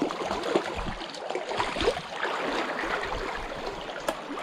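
Irregular splashing and sloshing of shallow stream water around a landing net holding a freshly caught trout, over the steady run of the stream.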